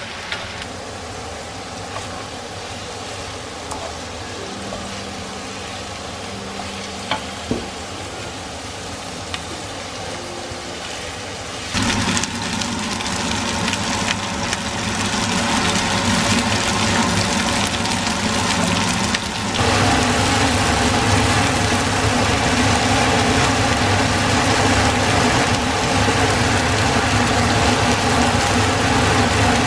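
Cubed pieces and chopped red onion sizzling in a nonstick frying pan on a gas hob while a wooden spatula stirs them, with a few light taps of the spatula early on. The sizzling gets louder about twelve seconds in and again near twenty seconds.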